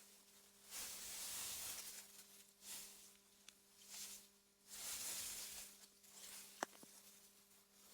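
Soft wind through meadow grass, coming in gusts that swell and fade every second or two, with a faint steady low hum underneath. A single sharp click falls about two-thirds of the way through.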